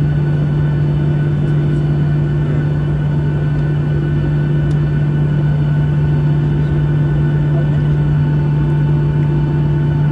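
Steady cabin drone inside a Boeing 737-800 taxiing, its CFM56-7B turbofans at idle thrust: a constant low hum with a faint steady whine above it.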